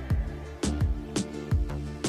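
Background music with a steady drum beat over sustained instrument notes.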